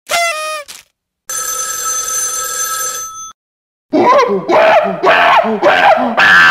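Three short sound effects in a row: a quick falling run of tones, then a steady ringing electronic tone for about two seconds, then a loud series of repeated pitched notes, about two a second, each dropping in pitch.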